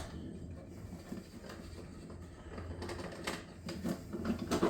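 Small scattered clicks and taps of a long Allen key working the grip screw out of a paintball marker's lower, with a sharper click at the start and a few more near the end.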